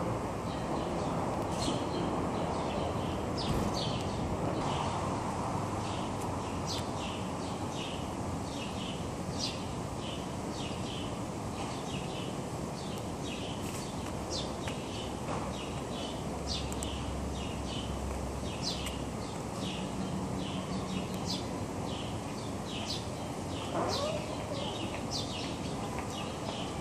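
Small birds chirping over and over in quick, short calls, several a second, while they feed on dropped food, over a steady low street background noise.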